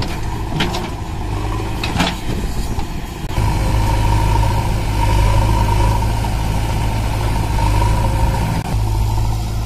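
Diesel engines of a JCB 3DX backhoe loader and a Swaraj 744 XT tractor running, with a few knocks in the first two seconds as the backhoe bucket dumps soil. About three seconds in, the sound steps up to a louder, steady engine run with a steady high whine over it.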